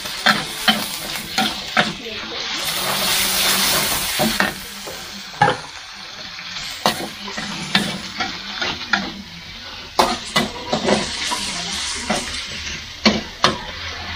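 Raw chicken pieces frying in hot oil and spice paste in a metal wok, sizzling as a metal spatula scrapes and clinks against the pan. The sizzle swells loudest about two to four seconds in.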